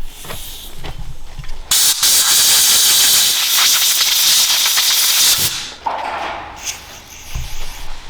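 A loud pressurised jet hissing for about four seconds and then cutting off, the kind of sound made when brake caliper parts are blown or sprayed clean.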